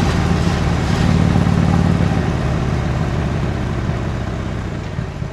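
Harley-Davidson Iron 883's air-cooled 883 cc V-twin engine running through its stock exhaust, a steady low note that grows weaker and quieter over the last few seconds.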